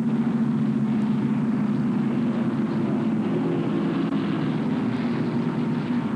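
NASCAR Winston Cup stock cars' V8 engines running on the track, a steady, unbroken drone.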